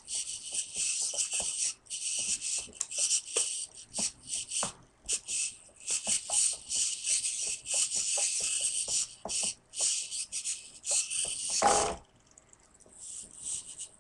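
Small RC hobby servos in a holoprojector mechanism buzzing with a high-pitched whine in quick stop-start bursts as they are driven back and forth by radio control. The buzzing cuts off about twelve seconds in, followed by a couple of fainter bursts.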